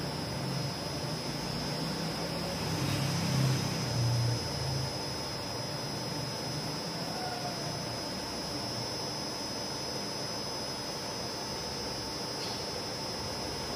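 Steady machine noise with a constant high whine and a low hum that swells for a couple of seconds near the start.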